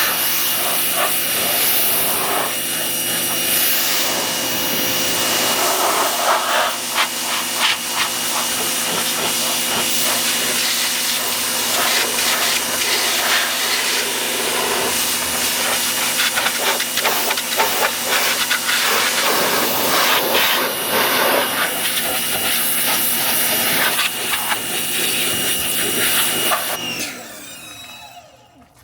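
Pressure washer running, its high-pressure jet hissing as it sprays a car's bodywork, with the steady hum of the washer's motor and pump beneath. About 27 seconds in the spray and motor stop and the sound falls away.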